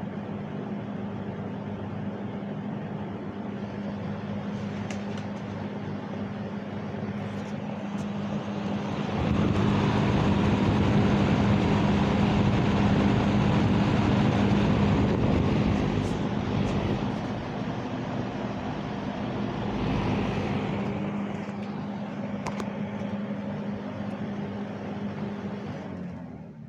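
1970s Windsor box fan running: a steady rush of air over a constant motor hum. It gets noticeably louder for several seconds in the middle, and the sound falls away at the very end.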